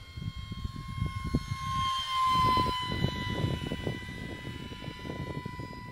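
Electric ducted-fan motor of a mini MiG-15 RC jet whining steadily in flight. The whine swells about two seconds in and dips slightly in pitch as the plane passes, over a gusty low rumble on the microphone.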